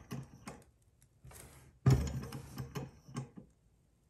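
A small alpha-type hot-air Stirling engine is turned over by hand: a few light clicks, then a sudden knock about two seconds in and about a second of clattering from its flywheel, pistons and linkage before it stops. The engine is new and still stiff, not yet hot enough to keep running on its own.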